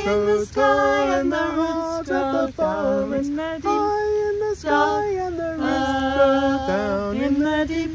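A man and two women singing an unaccompanied round in harmony, their overlapping parts holding and moving between sustained notes.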